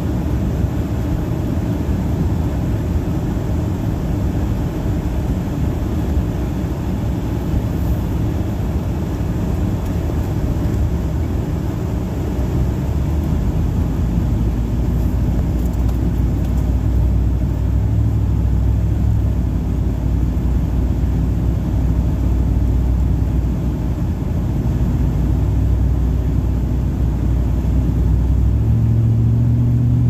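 Vehicle driving on a snow-covered road, heard from inside the cabin: a steady rumble of engine and tyres. From about halfway a low engine drone comes through more clearly, and it rises in pitch near the end.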